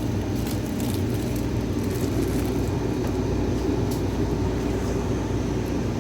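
Steady low mechanical rumble and hum, with a few faint high ticks.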